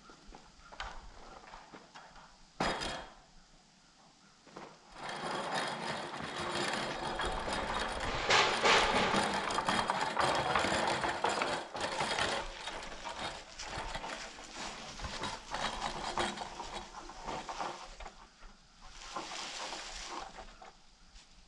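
Long rough-sawn wooden boards dragged across dry leaves and dirt: a rough scraping crunch full of small crackles, loudest in the middle and easing off near the end. A single sharp knock comes about three seconds in.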